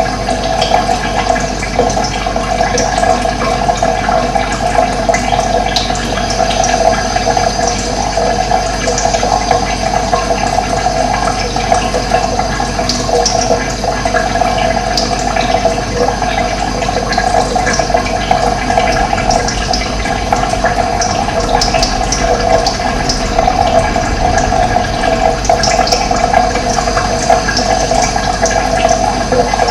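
Steady rushing of flowing water, with birds chirping briefly and often over it.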